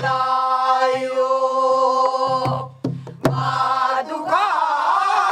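Pansori singing by a teacher and class together: a long held note, then a wavering line with heavy vibrato. A few sharp buk drum strokes fall about halfway through.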